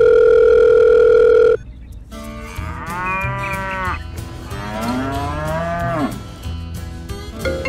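A loud, steady telephone tone for about two seconds, then a cow mooing twice, each moo long and bending in pitch.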